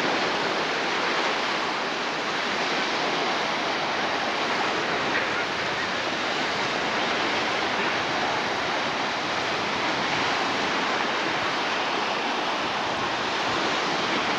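Sea surf washing onto a sandy beach: a steady, unbroken wash of noise.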